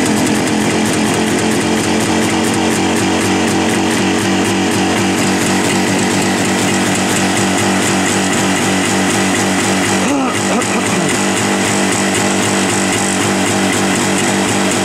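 Jawa 350 two-stroke twin engine idling while it warms up. It is still cold, at about 40 degrees, so it runs unevenly.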